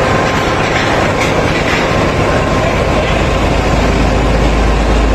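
Loud, steady running noise of the ferry's Mitsubishi 926 HP marine diesel engine, a dense mechanical din with a deep rumble that grows stronger about halfway through.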